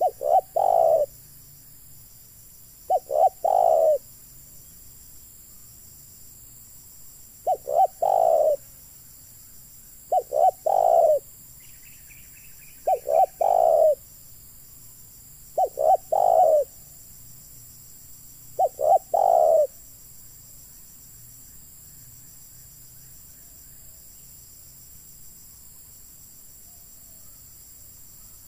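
Spotted dove cooing: seven phrases about three seconds apart, each two or three short notes run into a longer coo, stopping about two-thirds of the way through.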